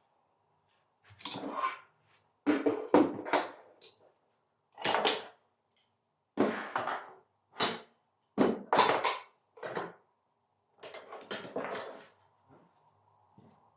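Heavy metal door closers being handled and put away: a series of clunks and clatters, about eight bursts of knocking with short pauses between them, stopping about 12 seconds in.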